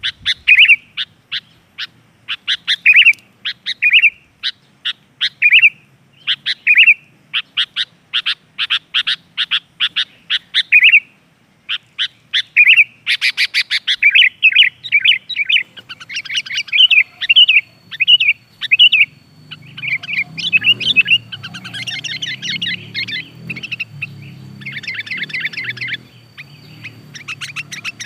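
Sooty-headed bulbuls (kutilang) calling: a long run of short, sharp chirps and bubbly whistled phrases, with quick stuttering runs of notes around eight to ten seconds in and denser chattering in the second half. A faint steady high whine comes in a little past the middle.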